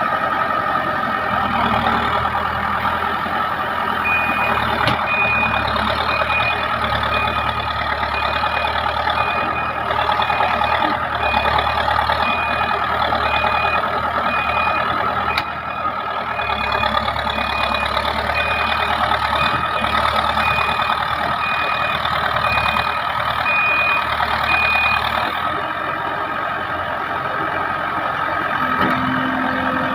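JCB 3DX backhoe loader's diesel engine running under load, with its reversing alarm giving a steady series of high-pitched beeps from about four seconds in for some twenty seconds; the engine eases off as the beeping stops.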